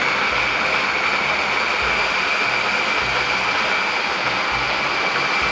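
Electric hand blender with its chopper attachment running continuously, grinding dried bread into breadcrumbs: a steady motor whine over the grinding noise.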